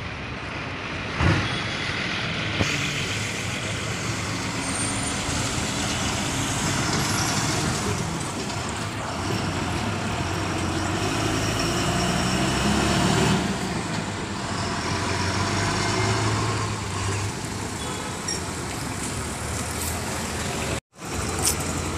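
Diesel buses running and manoeuvring, a steady engine drone that swells and fades as they move off and pass by, with a short sharp sound about a second in. The sound cuts out for a moment near the end.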